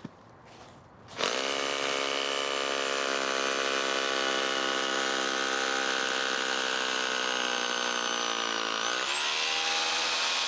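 Makita BHR241 18V cordless SDS-Plus rotary hammer drill starting about a second in and running steadily while drilling into concrete. Its pitch dips and then climbs again near the end.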